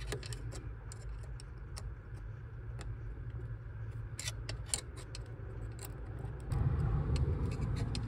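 Small scattered clicks and ticks of a flexible-shaft screwdriver slowly turning a tiny crosshead screw out of a VW T4 ignition switch housing. A low rumble comes in about six and a half seconds in.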